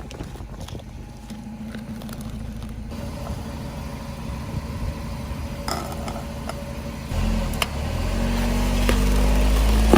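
Car engine running steadily at low revs, with a few short sharp clicks or cracks around the middle. About seven seconds in, the engine gets louder and stays louder.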